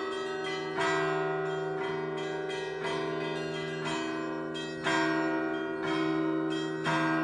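Russian Orthodox church bell peal (zvon) played by one bell-ringer: small bells strike quick patterns over the steady hum of the larger bells. There are heavier strokes about a second in and three more near the end. The piece is a greeting peal.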